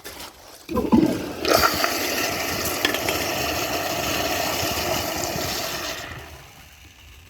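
Toilet flushing: a short clunk, then water rushing for about four and a half seconds before it dies away.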